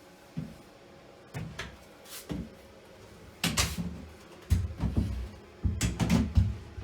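A flat-pack IKEA chest-of-drawers drawer being handled, with a string of wooden knocks and clacks, then heavier thuds in the second half.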